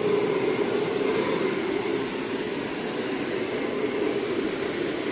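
Steady rushing air noise with a low hum, from a running fan or blower motor.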